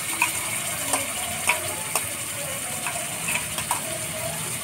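A metal spoon scraping and tapping against the inside of a steel mixer-grinder jar as thick masala paste is scraped out, in irregular clicks about twice a second. A faint sizzle of the paste hitting hot oil runs underneath.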